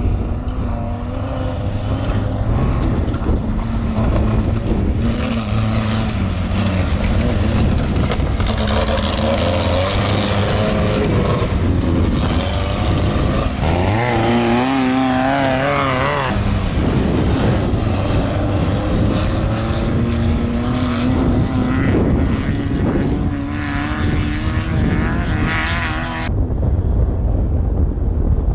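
Off-road racing vehicle engines running hard, their pitch rising and falling with the throttle, with a quick warbling up-and-down about halfway through. A dense rushing noise runs underneath.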